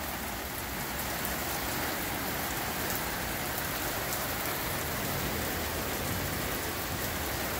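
Heavy rain falling in a steady downpour, an even hiss with no breaks.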